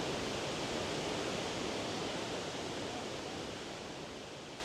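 Steady rushing roar of Iguazú Falls, water pouring over the cliffs in a continuous, even noise that eases slightly near the end.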